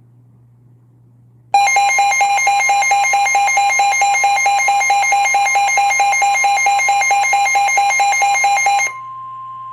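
NOAA Weather Radio emergency alert signal: a loud, rapidly pulsing electronic tone starts about a second and a half in and runs for about seven seconds, then gives way near the end to a single steady tone, the warning alarm tone that comes before a broadcast weather warning.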